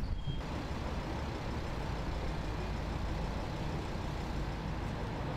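Steady low rumble and hiss of passing road traffic.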